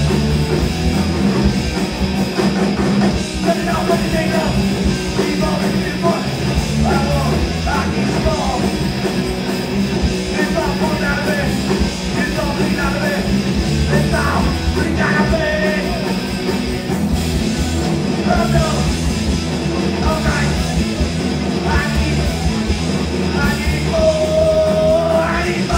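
Live hardcore punk band playing loud and fast: distorted electric guitar, electric bass and a drum kit, with a man shouting the vocals in short lines and holding one shouted note near the end.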